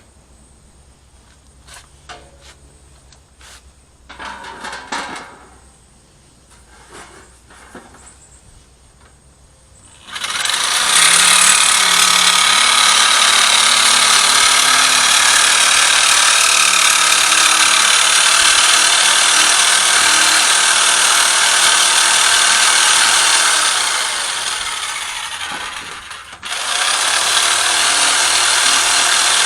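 A few handling clicks and knocks, then a power tool starts up about ten seconds in and runs loud and steady with a hissing, whining sound as it works, slowing and stopping briefly near the end before starting again.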